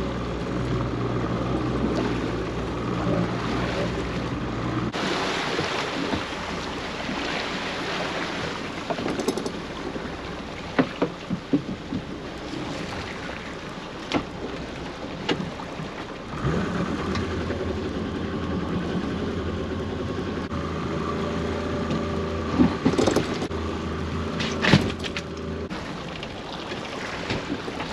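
A small boat's motor running steadily while crab pots are hauled. It stops about five seconds in and starts again around sixteen seconds. Between the two spells there is wind and water noise with scattered knocks, and a few sharper knocks come near the end.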